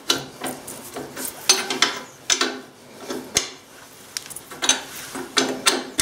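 Ring spanner working the rear axle nut of a Honda CBF125, turned in short strokes: a string of irregular sharp metal clicks and clinks.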